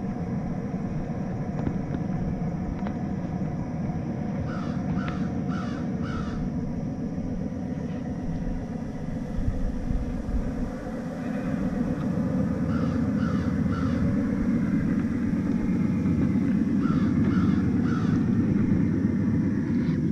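A crow cawing in three runs of three or four calls. Under it runs the steady low whir of the RC crawler's electric motor and drivetrain as it works over branches and grass, getting louder toward the end as it comes close.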